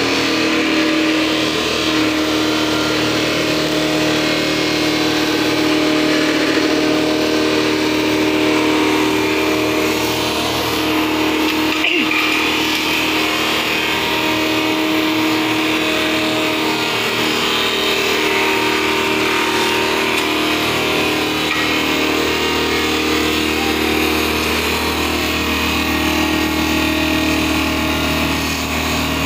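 Electric-motor-driven sawdust making machine running steadily as wood is ground into fine sawdust: a continuous mechanical hum and grinding at a constant pitch, with a single sharp click about twelve seconds in.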